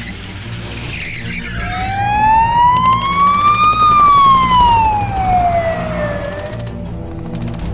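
Siren wailing once, rising slowly for about two seconds and falling back over about two and a half, over background music with a steady low beat.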